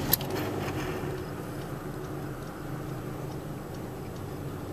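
Electric radiator cooling fan running with a steady hum, working again now that its burnt-out fuse has been replaced; a single click comes just after the start.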